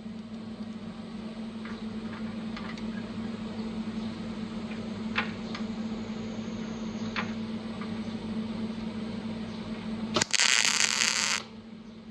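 MIG welder running: a short weld of about a second, a loud hissing burst near the end that starts and stops sharply, tacking a steel rod onto a bolt held in the ground clamp. Under it is the welding machine's steady hum, with a few light clicks of the rod being handled and set against the bolt beforehand.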